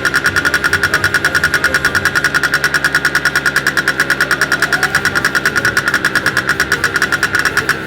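An engine idling with an even, rapid pulse of about eight or nine beats a second.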